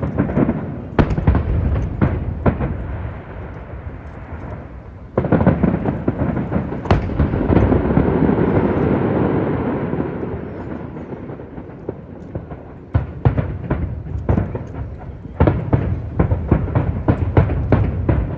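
Fireworks bursting overhead: a few sharp bangs, then a long rumbling stretch of overlapping bursts, then a quick string of bangs toward the end.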